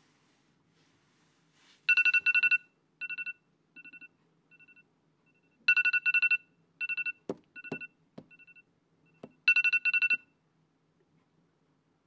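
Electronic alarm tone beeping in short pulses. The pattern repeats three times about four seconds apart, each round loud at first and then trailing off in fainter beeps. A few sharp knocks come between the beeps around the middle.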